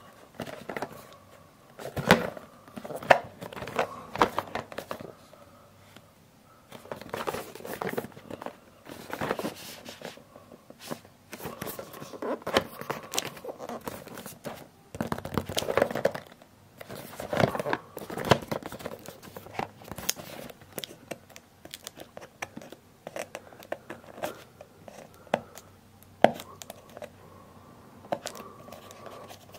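Cardboard packaging handled and opened by hand: irregular bursts of crinkling, scraping and tearing, with fingernails picking at packing tape near the end.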